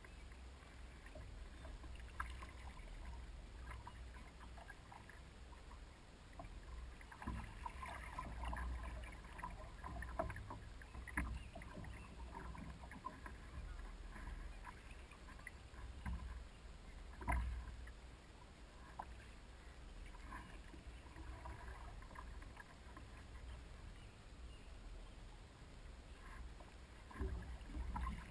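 Paddle strokes working a big canoe through calm water: soft swishes, splashes and drips, with a few sharp knocks on the canoe, the loudest about two-thirds of the way through, over a low steady rumble.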